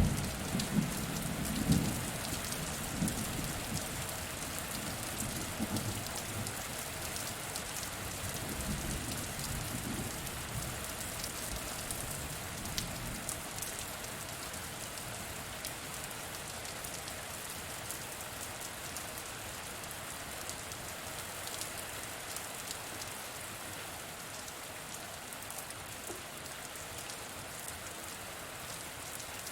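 Steady rain falling, with fine scattered drop ticks over an even hiss. A low thunder rumble dies away during the first ten seconds or so.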